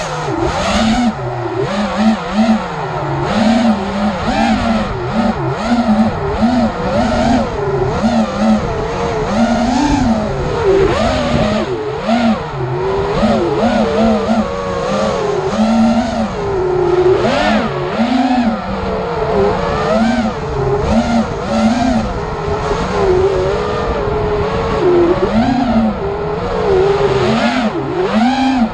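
Racing miniquad drone's electric motors and propellers buzzing, the pitch constantly rising and falling as the throttle is worked, with frequent short surges.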